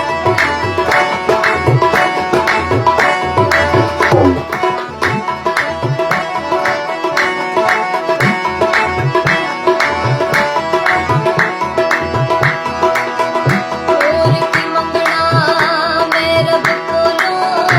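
Indian music with tabla playing a steady, even rhythm under held melodic instrument notes. A higher, wavering melody line comes in near the end.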